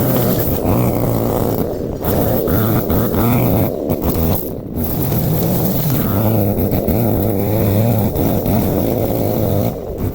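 Lawn mower engine running steadily under load.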